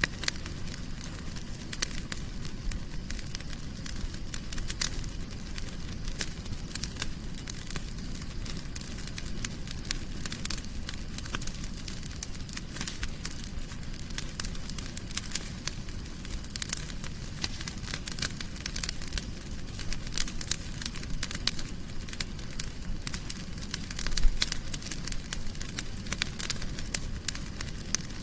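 Wood fire burning in a fireplace, crackling steadily with many small sharp pops over a low rumble, and a louder burst of crackles about 24 seconds in.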